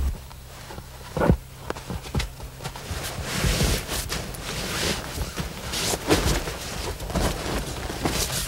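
Rustling and shuffling of sleeping bags being spread out over fur hides on a tent floor, with scattered knocks and one sharp knock about a second in.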